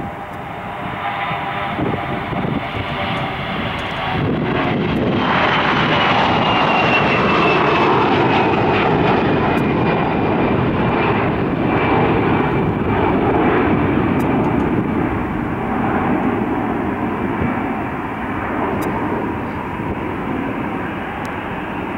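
Airbus A320-211 airliner's CFM56 engines at takeoff thrust as it lifts off and climbs past: a broad jet rumble that swells about four seconds in, with a high fan whine slowly falling in pitch. The sound then eases off as the aircraft climbs away.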